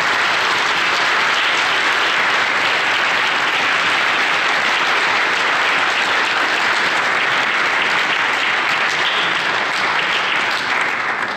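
Audience applauding at the end of a talk: a dense, steady clapping that starts at full strength and begins to die down at the very end.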